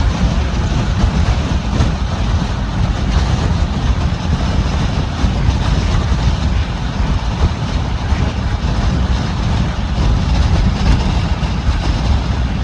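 Steady low rumble of road and wind noise from a car on the move.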